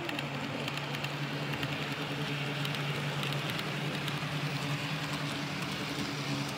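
Model train running along the layout track, with a steady low hum and background hall noise behind it.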